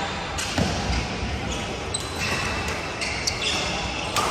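Badminton rally in a large, echoing sports hall: sharp racket strikes on the shuttlecock, a couple of short squeaks from shoes on the court floor in the middle, and the busy murmur of other courts.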